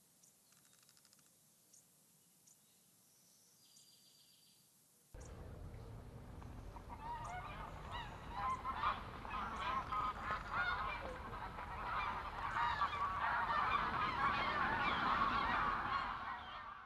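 A large flock of birds calling all at once, many overlapping calls coming in suddenly about five seconds in and building louder before fading out at the end. Before that there are only a few faint chirps.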